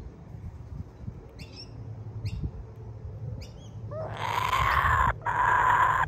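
Laughing kookaburra giving two long, raspy calls from about four seconds in, a chick-like begging noise that the owner believes is the sound of feeding young. A few short, faint high chirps come before them.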